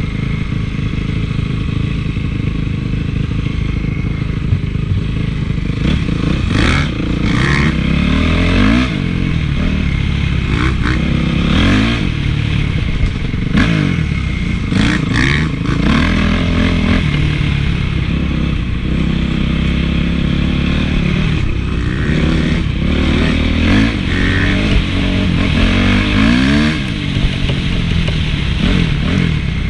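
Honda CRF450's four-stroke single-cylinder engine being ridden hard, revving up and dropping back over and over as the throttle opens and closes. Brief clattering knocks are scattered throughout.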